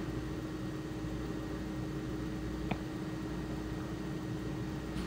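Steady road and engine noise heard inside a car cabin while driving on a highway, with a constant low tone and one faint click near the middle.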